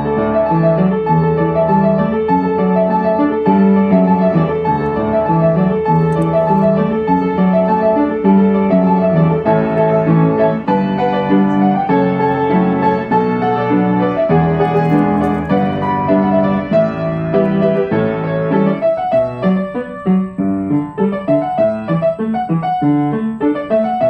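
Background piano music: held chords that give way to separate, more spaced-out notes over the last few seconds.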